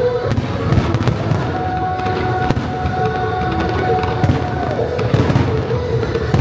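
Fireworks bursting in quick, irregular succession, sharp cracks over a low rumble, with the show's synchronized music playing under them in held notes.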